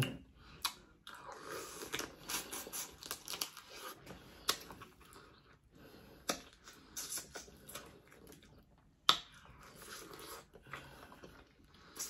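Dungeness crab being eaten: shells cracking and crunching and meat being chewed, with sharp cracks now and then, the loudest about nine seconds in.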